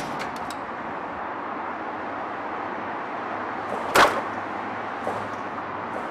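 Steady background hiss, a few light clicks at the start, then one sharp bang about four seconds in, a car door being shut.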